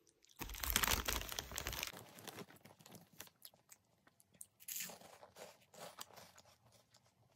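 Crinkling and rustling of a large plastic snack bag being handled, loudest for about a second and a half starting half a second in, then softer scattered crackles.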